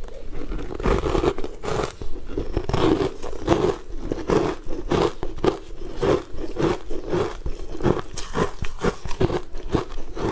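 Close-up crunching and chewing of a bitten-off piece of frozen, coloured sweet ice coated in green powder: many crisp crunches, a few a second, with wet mouth sounds underneath.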